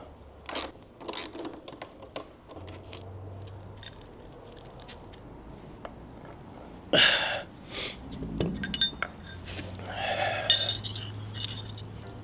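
Metal tools and exhaust hardware clinking and tapping during a job on a motorcycle, with a louder clunk about seven seconds in and another about ten seconds in that rings briefly.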